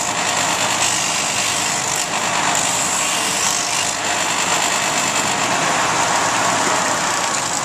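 Disc sander running together with a dust collector, a steady loud whir and rush of air.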